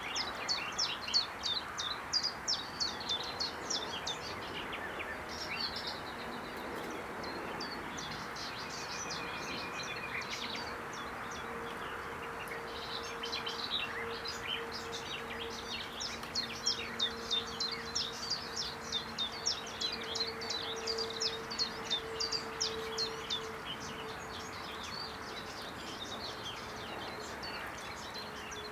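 A small songbird calling in rapid runs of high, thin chirps, about two a second, in two bouts: one at the start and a longer one in the middle. Under it is a steady outdoor hiss, with a faint low hum in the middle.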